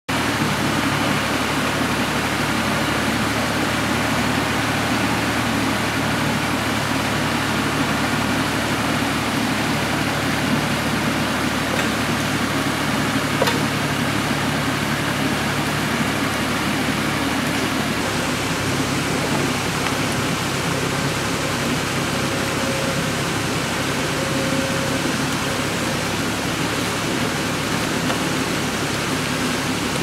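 Creek water rushing in a steady, even wash, with a faint low hum underneath that changes about halfway through.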